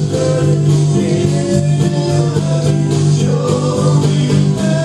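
Live band playing a song, with guitar and a voice singing.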